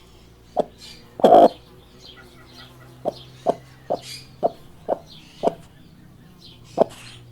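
Chickens clucking: a run of short, sharp clucks, with one louder, longer call about a second in.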